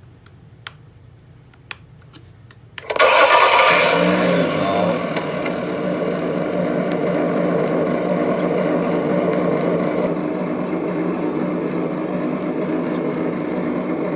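An RC excavator's electronic engine sound unit playing through its small speaker: a few faint clicks, then about three seconds in a simulated engine start-up bursts in and settles into a steady idling engine sound.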